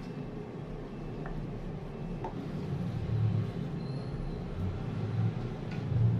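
Hands and a silicone spatula working crumbly cookie dough in a glass bowl, with irregular dull low thumps as the bowl is handled and a few faint clicks over a steady low rumble.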